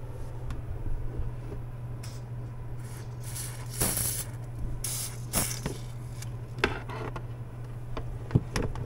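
Cavity wax spray gun with a multi-nozzle hose wand firing hissing bursts of wax into a plastic tub: a longer burst about three seconds in and a shorter one about five seconds in, over a steady low hum.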